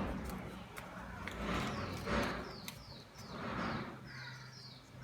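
Small birds chirping in the background: a run of short, quick chirps that slide downward in pitch, beginning about two seconds in. Under them, two swells of rustling, which fit craft paper being folded and handled.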